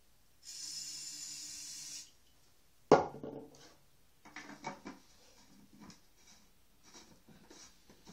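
Potato gun test-fired with a 3-inch barrel: a hiss of gas for about a second and a half, then a single sharp bang about three seconds in. Light clicks and rattles of the gun being handled follow.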